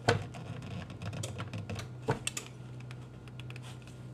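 A string of light plastic clicks and taps, with a few sharper knocks, as a NutriBullet-style blender cup and its blade base are handled, over a faint steady low hum.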